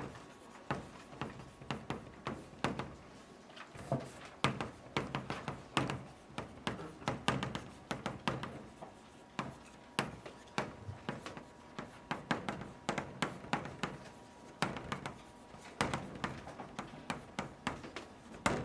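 Chalk on a chalkboard writing Chinese characters: a quick, irregular run of sharp taps and short scrapes as each stroke is made, with brief pauses between characters.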